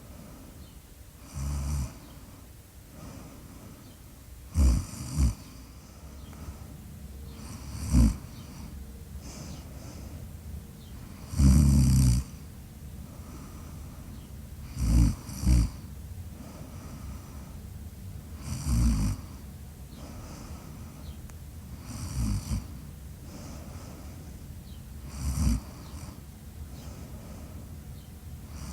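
Snoring in short, loud snorts about every three to four seconds, several of them doubled, the longest and loudest about twelve seconds in.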